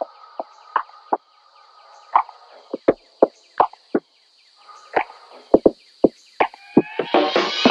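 Irregular sharp knocks and clicks on a hard tiled floor: a person's footsteps and things being handled and set down in an empty classroom. Background music comes in near the end.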